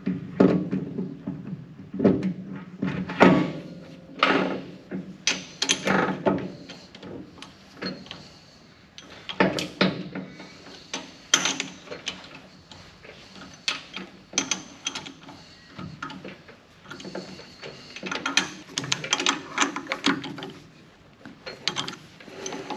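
Steel jaws of a lathe's four-jaw chuck clicking, clunking and scraping as they are slid into their slots and wound in with the chuck key, in irregular bursts of knocks.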